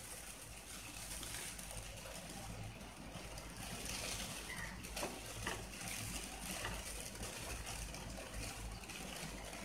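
Wooden spatula stirring a thick, simmering milk-and-flour sauce with corn kernels in a nonstick kadai, faint, with a few soft scrapes against the pan.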